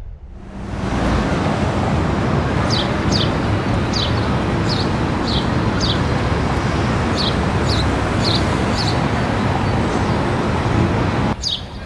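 Steady street traffic noise with a small bird calling over it in short, falling chirps, often in pairs, through the middle of the stretch. The noise drops away suddenly near the end.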